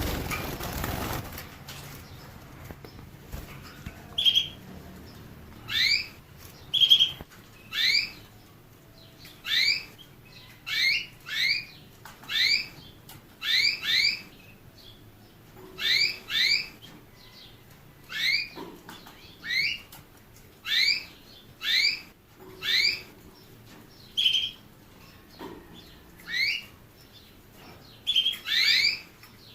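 A small finch repeating short rising chirp calls, one or two at a time every second or two, with a few short level whistled notes among them. A brief rustling noise comes at the very start.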